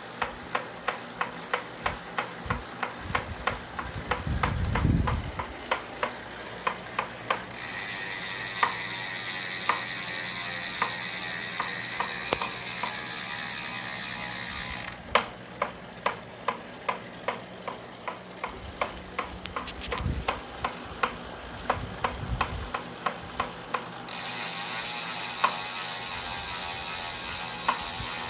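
Saris H3 direct-drive smart bike trainer knocking over and over, about two to three knocks a second, the knocks spacing out in the quieter stretches. A steady whir comes and goes under them. The knock is a fault in the trainer.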